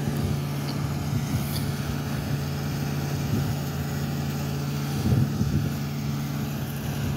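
Semi truck's diesel engine idling steadily, with a few knocks about five seconds in.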